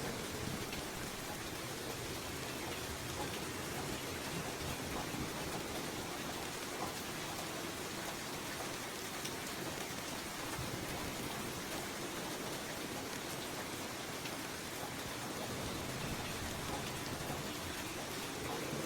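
Steady light rain falling: a dense, even patter with no thunder.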